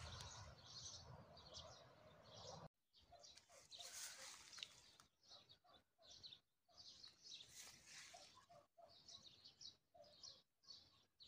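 Faint songbirds chirping, many short calls scattered throughout, with a low rumble in the first couple of seconds.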